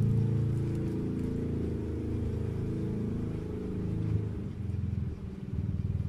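A low, muffled engine rumble, turning choppy and pulsing about four and a half seconds in.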